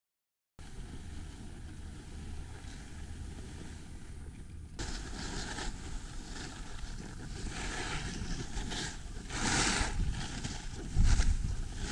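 Silent for the first half second, then wind rushing over the microphone of a camera moving downhill on skis, with the hiss of skis on packed snow. It gets louder about five seconds in, with louder gusts or turns near the end.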